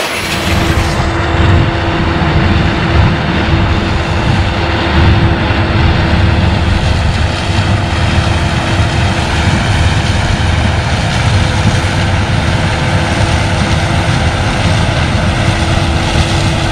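Heavy corn-harvest machinery running steadily: a loud low rumble with a steady whine over it.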